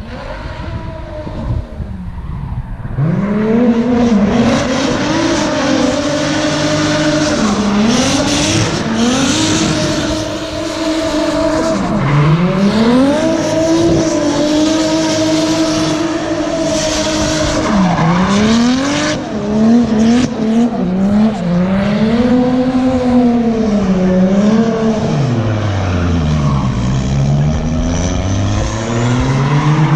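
Turbocharged drift car's engine revving up and down over and over through a drift pass, with its rear tyres squealing and spinning. It starts out faint and gets loud about three seconds in.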